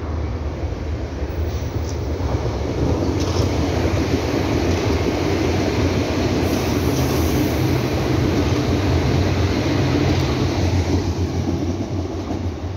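Berlin U-Bahn small-profile train on the U2 line running past close by on the track. Its wheels on the rails and its running gear give a steady rumble with a low hum, which grows louder about three seconds in and eases off near the end.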